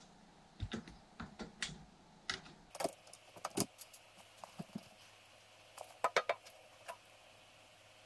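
Scattered light clicks and knocks at irregular intervals, with a quick cluster of them about six seconds in.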